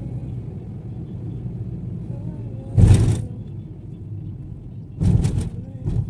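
Steady low rumble of a car on the move, heard from inside, with a loud short burst of noise about three seconds in and a few more quick bursts near the end.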